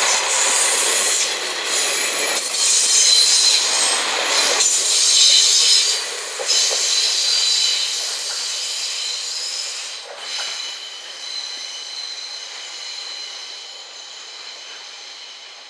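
KiHa 47 diesel railcar set passing slowly close by on a curve, its wheels squealing with several high, steady tones. The noise is loud for the first six seconds, then fades as the train draws away.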